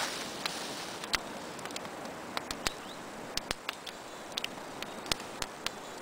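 Small wood campfire crackling: sharp pops at irregular intervals over a faint steady hiss.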